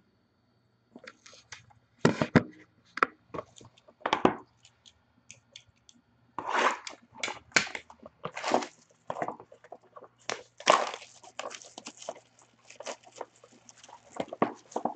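Plastic shrink-wrap being torn and pulled off a trading-card box, with irregular crinkling and crackling.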